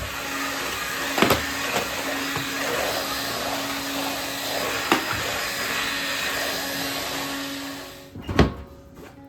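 A motorised appliance running steadily with a whooshing noise and a constant hum, with a few knocks. It stops about eight seconds in.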